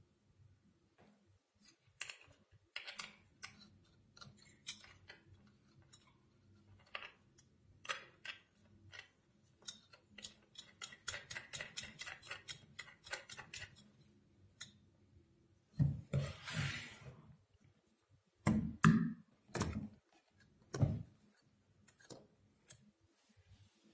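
Small clicks and knocks from a CPU air cooler and its mounting hardware being handled and fitted onto a motherboard on a table. About ten seconds in there is a run of quick ticking for a few seconds; later comes a short scrape and a few heavier knocks.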